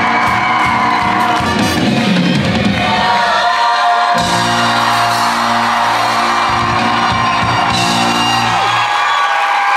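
Musical-theatre band playing the curtain-call music, with audience whooping and cheering over it. The music settles on a long held final chord about four seconds in, which stops just before the end.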